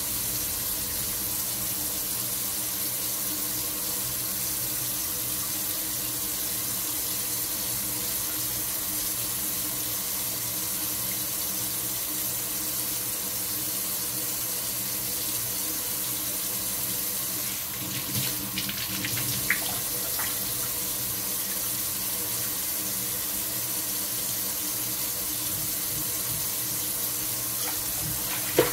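Kitchen faucet running steadily into a stainless steel sink and a glass bowl while wheat dough is rinsed under the stream to wash out its starch. A few splashes and a sharp knock come about two-thirds of the way through, and another knock right at the end.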